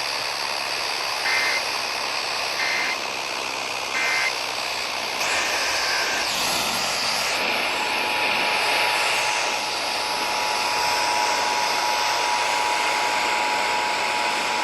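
Emergency Alert System data tones over steady radio static: three short screeching end-of-message bursts about a second apart, then a longer data burst. From about seven and a half seconds in, the two-tone EAS attention signal sounds steadily, the alarm that opens the next warning.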